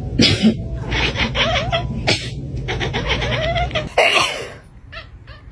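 A person sneezing loudly three times, about two seconds apart, with pulsed vocal sounds in between.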